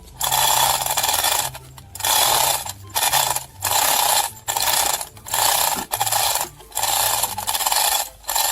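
Rhythmic scraping strokes, about eight in a row, each lasting about a second.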